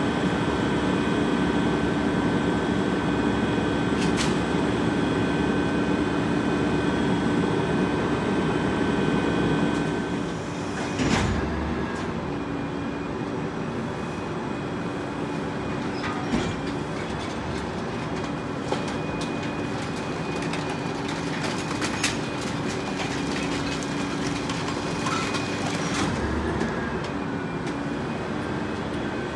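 Rear-loader garbage truck working, its engine running with a steady whine from the packer hydraulics. The whine eases about ten seconds in. A sharp bang follows, then several scattered knocks and cracks.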